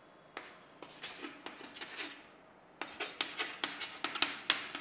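Chalk writing on a chalkboard: a run of short scratching and tapping strokes, a few scattered ones at first and a quicker, denser run through the second half.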